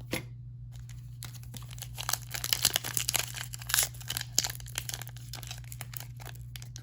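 Foil wrapper of a Pokémon TCG mini booster pack crinkling and tearing as it is opened by hand, a dense crackle that starts about a second in.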